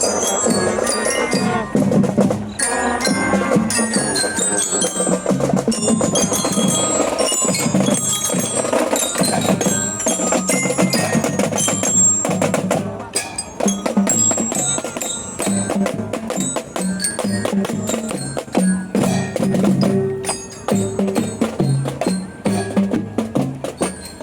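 A school drum band playing on the march: the bright, bell-like melody of marching glockenspiels over a steady beat of snare and bass drums.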